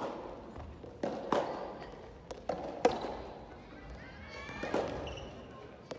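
Soft tennis rally in a gymnasium: a rubber soft tennis ball struck by rackets and bouncing on the wooden floor, sharp irregular pops that ring on in the hall.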